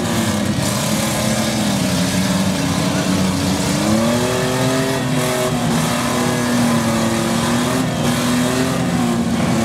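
Demolition derby minivan engines revving, their pitch rising and falling as the drivers accelerate and back off.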